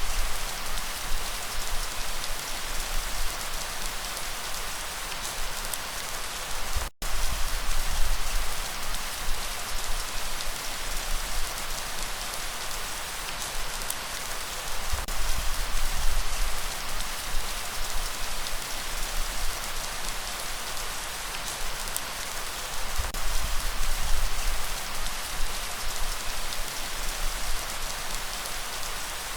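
Steady light rain falling, an even hiss with scattered sharp drop ticks, over a low rumble of breeze that swells and fades every few seconds. The sound cuts out for a split second about seven seconds in.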